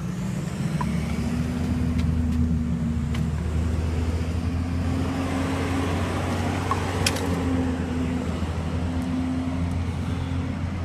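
Garbage truck's diesel engine running, its note stepping up about a second in and holding at a steady higher pitch. There is one sharp click about seven seconds in.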